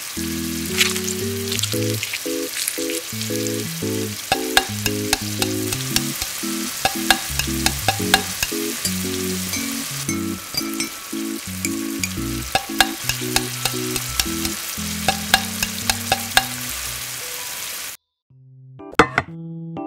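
Food sizzling in a small steel wok, with frequent sharp clicks of a utensil against the pan as it is stirred. The sizzle cuts off suddenly near the end, leaving a few clicks.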